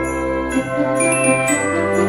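Christmas background music with jingle bells ringing over sustained pitched notes that change about every half second.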